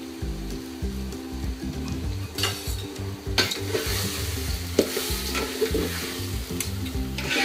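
Steel spoon stirring raw rice and red lentils in an aluminium pot, the grains scraping and rustling against the metal while they fry in hot oil with a light sizzle; the stirring starts about two and a half seconds in. Low background music runs underneath.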